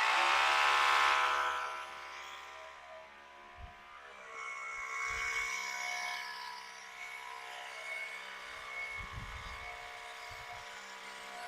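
Electric hammer drill running steadily as it bores into a stone chimney, a drone with a high whine, loudest for the first second or so and then quieter. A few faint low knocks are heard along the way.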